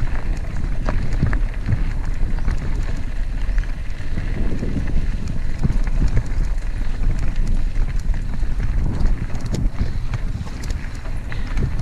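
Wind rushing over the microphone of a moving mountain bike, with a low rumble from the tyres on rough ground and scattered knocks and rattles from the bike over bumps.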